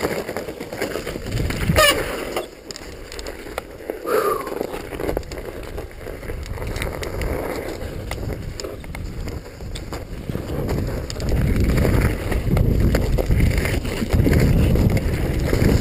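Mountain bike riding down a snowy trail: the bike rattles with many small knocks and clicks. Wind on the microphone builds to a louder low rush in the last few seconds.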